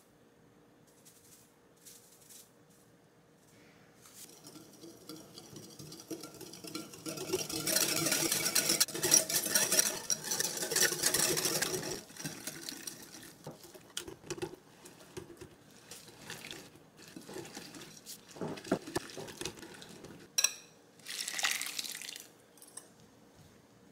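Metal balloon whisk beating a liquid mixture in a glass bowl, its wires rattling and scraping against the glass. The whisking is fastest and loudest in the middle, then slows to scattered taps. Near the end comes a sharp clink and a brief pouring sound as the mix goes into a stainless steel bowl.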